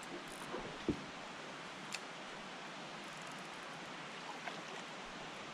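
Faint steady outdoor hiss of open water and air, with two small clicks about one and two seconds in.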